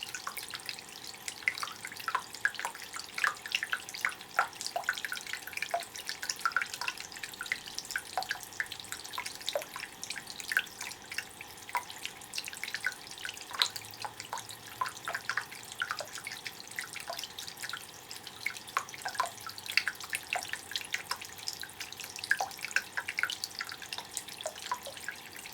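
Small indoor limestone rock fountain: water trickling and dripping steadily down the stone into its basin, with many small drips and splashes.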